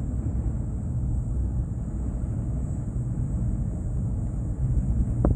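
Steady low rumble inside a moving cable car gondola as it runs along its cable, with a single short click near the end.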